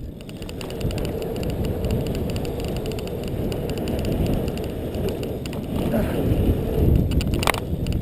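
BMX bike coasting fast over a BMX track: a steady low rumble of tyres and rushing air, with a sharp click about seven and a half seconds in.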